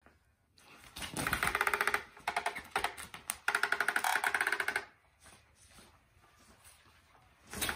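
Blackhole Catch the Tail electronic cat toy running under its nylon cover in three short spurts. Its small motor whirs with a rapid ticking rattle as the wand sweeps round, the longest spurt lasting about a second and a half, then it falls quiet.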